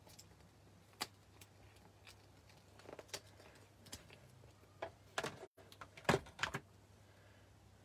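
Scattered light clicks and taps of hard plastic craft supplies being handled and set down on a craft mat: a clear plastic stamp-set case with rubber stamps, and a stamping block. The clicks are loudest and closest together about five to six and a half seconds in.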